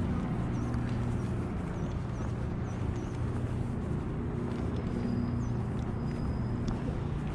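Steady low hum of city traffic, with small birds giving short high chirps, about six in the first three seconds and once more a little after five seconds.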